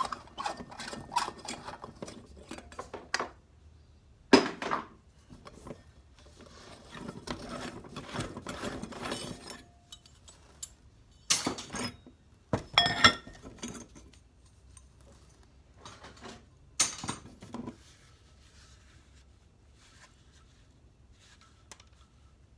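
Small metal items being handled and set down: irregular clinks, rattles and knocks, the sharpest about four, eleven, thirteen and seventeen seconds in, with some rustling in between and only faint handling noise near the end.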